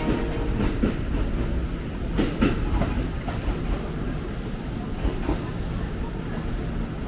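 Train running on the rails: a steady low rumble of wheels on track, with a few sharp clacks about two seconds in.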